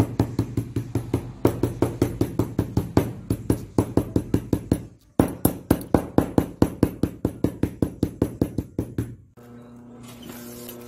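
A hammer beating rapidly along a girth strap on a workbench, about five blows a second, with a short break about five seconds in. Near the end the knocking stops and a sewing machine hums steadily.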